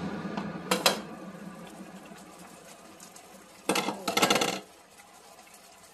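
A glass lid is set onto a stainless steel sauté pan with a couple of sharp clinks about a second in, as the sizzle of liquid in the hot pan dies away. A second short burst of clattering comes near the four-second mark.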